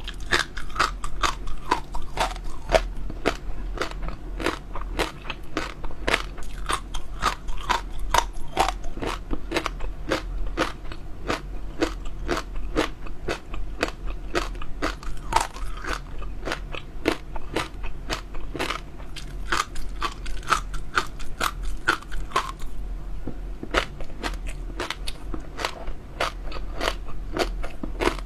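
Close-up chewing of crunchy jelly pearls: rapid crackling crunches several times a second, easing briefly near the end, over a low steady hum.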